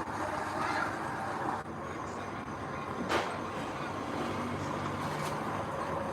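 Heavy earthmoving machinery running steadily, with a diesel engine drone and one sharp metallic knock about three seconds in.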